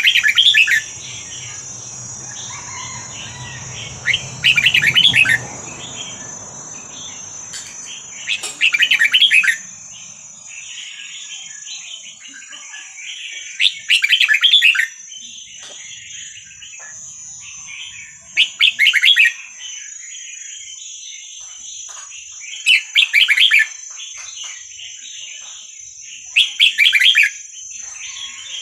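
Young red-whiskered bulbul singing: short, loud song phrases about every four to five seconds, with softer chattering calls between them.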